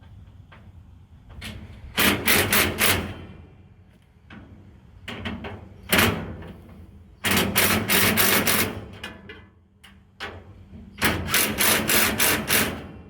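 Cordless drill tightening nuts and bolts in three bursts of about a second and a half, each a rapid clatter of clicks.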